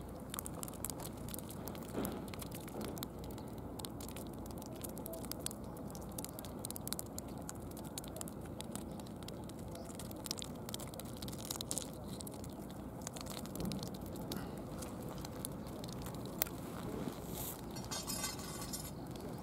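Small fish flopping on a concrete pier, a string of irregular light slaps and taps, over a steady low background noise.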